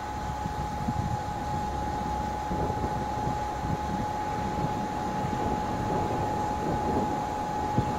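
Red double-deck regional train approaching at a distance: a low, steady rumble with a steady high-pitched whine over it, and a short click near the end.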